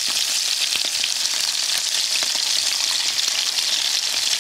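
Pieces of fresh pike sizzling steadily in oil in a hot frying pan, a constant hiss flecked with fine crackles.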